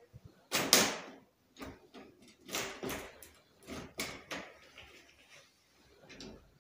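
Door lever handle being worked up and down, its lock mechanism clicking and rattling in four or five short strokes about a second apart; the first stroke is the loudest.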